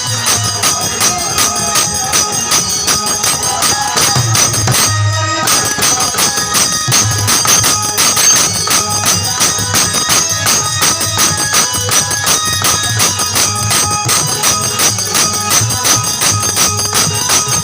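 Instrumental passage of a Bhojpuri-style wedding folk song: fast, even beat of jingling percussion with ringing tones above it, and no singing.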